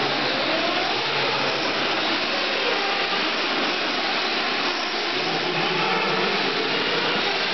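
Small nitro engines of radio-controlled off-road cars racing: a loud, continuous high-pitched whine whose pitch keeps rising and falling as the cars accelerate and lift off.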